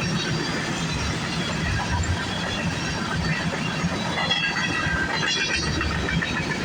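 CN freight train cars rolling past on steel rails, with a steady rumble of wheels on track. High squealing tones from the wheels come in from about four to six seconds in.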